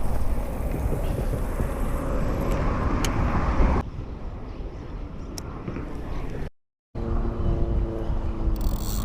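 Steady low rumbling noise, dropping in level about four seconds in and cutting to total silence for a moment about six and a half seconds in.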